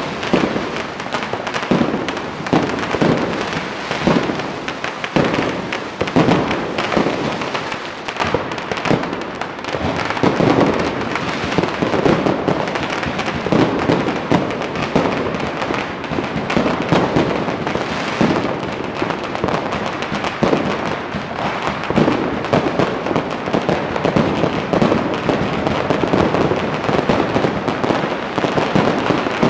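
Dense, continuous Spring Festival firecrackers and fireworks going off from many directions at once: an unbroken din of overlapping bangs and crackling strings, described as like a war zone.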